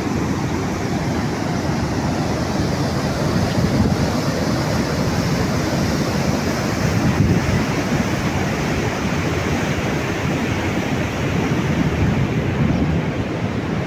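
Water rushing and churning steadily over a weir, with wind buffeting the microphone.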